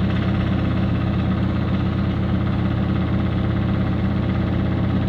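Samsung digital inverter washing machine spinning its empty drum at speed: a steady, even drone and hum. The owner complains that the spin is making a bad sound.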